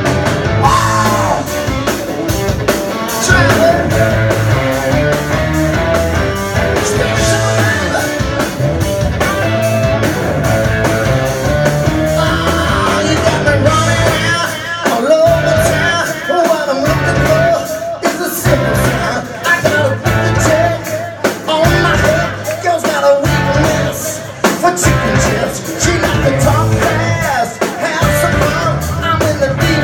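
Live rock band playing: a man singing lead over electric guitar, bass and a steady drum beat.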